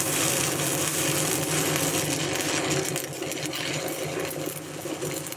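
Stick (shielded metal arc) welding with an Eagle 823 XS low-hydrogen electrode: the arc crackles and sizzles steadily as a bead is run, over a steady low hum.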